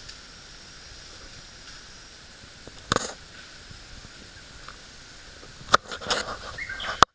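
Steady outdoor background hiss, with one sharp click about three seconds in and a burst of clicks and knocks near the end before the sound cuts off suddenly.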